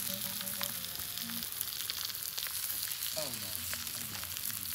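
Onion slices and yellow peppers frying on a hot slate slab over a wood fire: a steady sizzle with frequent small pops.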